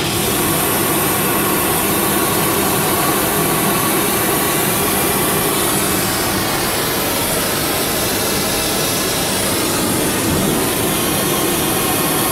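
Fusewelder gas torch burning steadily with a neutral flame, giving a loud, even hissing rush as it preheats the component toward about 300 °C.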